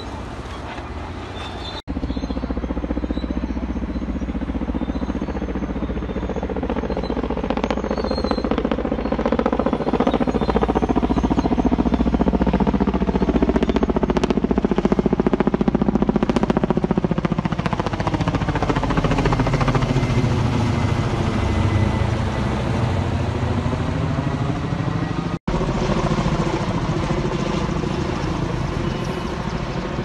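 A low-flying firefighting aircraft's engine drone swells as it passes overhead, its pitch bending as it goes by. The sound breaks off for a moment twice, once about two seconds in and once near the end.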